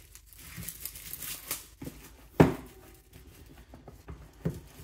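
Handling noises of a product box and its packaging: light rustling and taps, with one sharp knock about two and a half seconds in.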